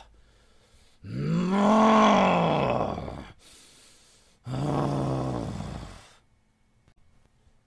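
A man's wordless, angry vocal sounds, two of them. The first starts about a second in and is long, rising then falling in pitch. The second, shorter and steadier in pitch, comes about halfway through.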